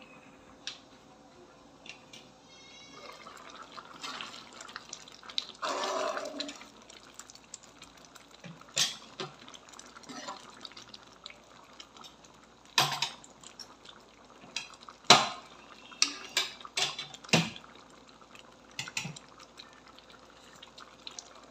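Cooking at a wok of simmering vegetable soup: the glass lid comes off, then a metal spoon stirs the broth, clinking sharply against the pan several times over a wet bubbling.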